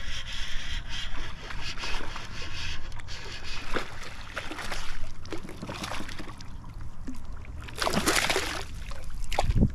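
Water splashing and sloshing as a hooked largemouth bass is fought at the surface, with scattered small splashes and clicks and one loud splash about eight seconds in.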